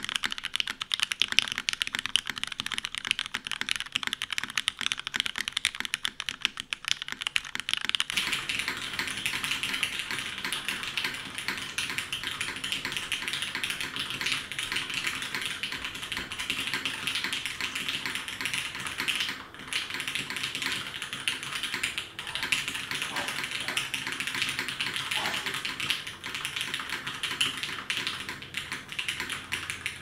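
Continuous fast typing on a DN Works SBL mechanical keyboard with an aluminum plate, lubed Nixie switches and GMK keycaps: a dense stream of key clacks. The sound turns fuller about eight seconds in, with two brief pauses in the typing later on.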